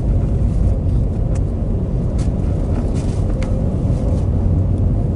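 Pickup truck driving on a snow-covered road, heard from inside the cab as a steady low rumble of engine and tyre noise, with a few faint clicks.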